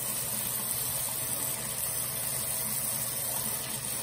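Tap water running steadily into a sink, an even hiss.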